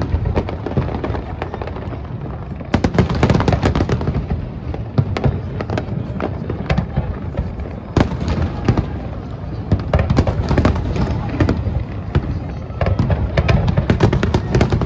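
Aerial fireworks shells bursting in rapid volleys: sharp cracks and booms over a continuous low rumble of distant detonations. The volleys bunch up several times, heaviest near the end.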